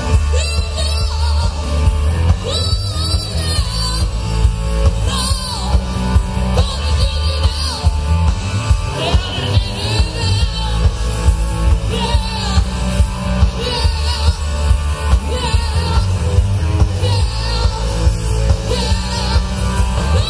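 Live rock band playing loudly: drums keeping a steady beat under heavy bass, electric guitar and a singing voice.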